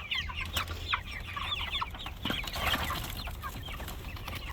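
A flock of young Cornish Cross meat chickens peeping and clucking, many short high calls overlapping, over a steady low hum.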